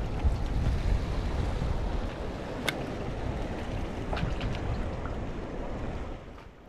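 Wind buffeting the microphone over the wash of waves on the shore. A sharp click about two and a half seconds in and a few lighter ticks around four seconds; the wind noise drops away near the end.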